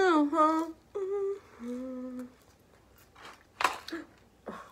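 A woman humming short 'mmm' sounds with her mouth closed while eating french fries; the first slides down in pitch, and two shorter held hums follow. A few short noisy mouth or breath sounds come near the end.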